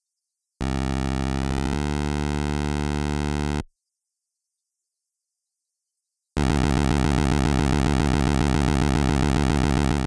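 Retro 8-bit-style synthesizer sound effects: a steady buzzy electronic tone lasting about three seconds, standing for the speedboat's motor, then silence for nearly three seconds, then a second, slightly louder buzzing synth sound with a fast flutter that runs about four seconds.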